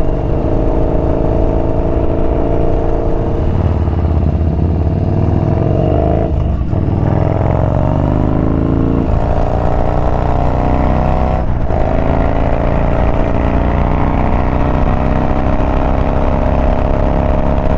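Yamaha Bolt's air-cooled 942 cc V-twin engine under way and accelerating. Its pitch climbs in stretches, broken by short gaps for gear changes, about six and a half and eleven and a half seconds in.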